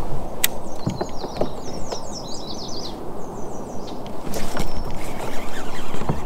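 Steady low rushing of water and air around a kayak on open water, with a few short clicks and knocks. A small bird sings a quick run of falling high chirps over the first half.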